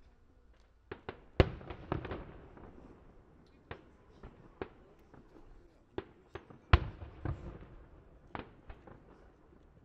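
Aerial firework shells bursting in a display: about a dozen sharp bangs at uneven intervals, each trailing a short rumbling echo. The two loudest come about a second and a half in and near seven seconds in.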